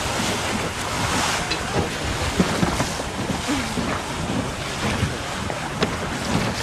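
Strong wind buffeting the microphone over choppy open sea, with water rushing and splashing and a few short sharp slaps.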